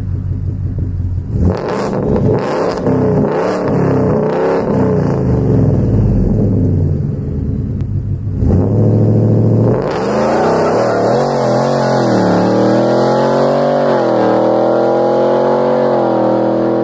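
Ford F-150's twin-turbo EcoBoost V6 accelerating hard away from a stop, revs climbing and dropping through several upshifts. About ten seconds in the sound changes to the same engine heard from inside the cab, pulling up through the gears to highway speed, with pitch rising, dipping at two upshifts, and rising again.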